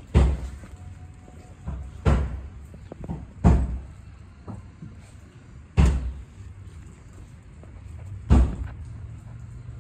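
A series of heavy thuds: five loud ones at irregular gaps of one and a half to two and a half seconds, with softer knocks between.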